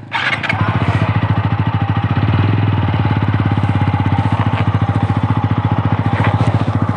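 Motorcycle engine running at a steady, even beat, cutting in suddenly just after the start.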